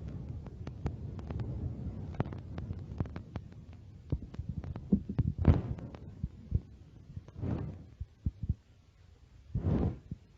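Close-miked eating sounds: chewing with many small sharp mouth clicks over a low rumble, and three short, louder swells of noise a couple of seconds apart in the second half.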